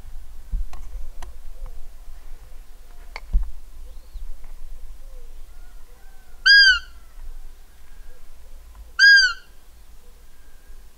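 Buttolo rubber-bulb roe deer call squeezed twice, giving two short, piercing, arched squeaks about two and a half seconds apart. It imitates a roe doe's call to lure a buck during the rut.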